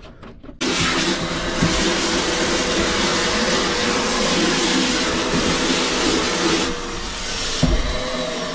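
Wet-and-dry vacuum switched on about half a second in, running with a loud steady hiss and hum as it sucks water up a wide corrugated hose. Near the end the hiss eases, there is a single knock, and the motor's hum falls in pitch.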